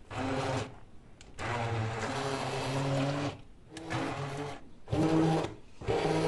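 Hand-held immersion blender running in about five short pulses with brief pauses between them, whizzing boiled chickpeas and eggs into a smooth paste in a glass bowl.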